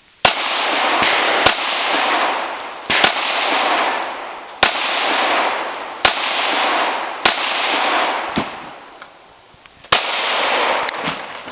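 Pistol shots fired one at a time, about seven of them at roughly one every second and a half, each trailing a long echo.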